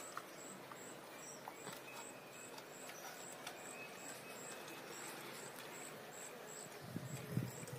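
Faint insect chirping, a short high chirp repeating about two to three times a second over a light hiss, with a few soft low knocks of handling near the end.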